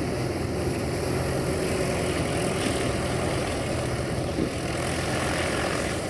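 A propeller aircraft's piston engine running steadily, under a constant rushing noise.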